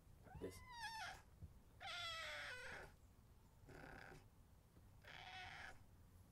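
Domestic cat meowing: two clear meows in the first three seconds, the first rising then falling in pitch, the second falling, then two shorter, fainter calls.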